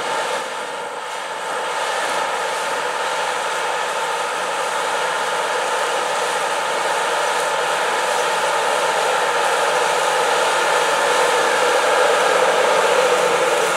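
Case IH Steiger 370 HD tractor's diesel engine running steadily under load while pulling a disk ripper through corn stubble, growing gradually louder as the tractor approaches.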